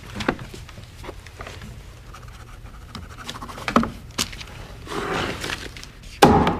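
A hand stamp brought down hard on a paper document on a wooden desk: a couple of light knocks, then one loud thud near the end.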